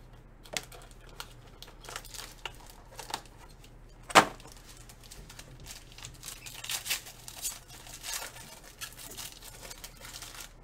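Foil trading-card pack wrapper being handled and torn open by hand. There is crackly crinkling throughout, one sharp loud rip about four seconds in, and denser crinkling of the foil a couple of seconds later.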